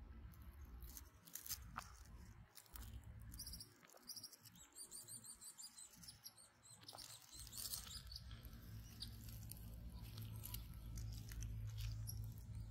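Faint outdoor quiet with small birds chirping in quick high runs a few seconds in, over soft rustles and clicks.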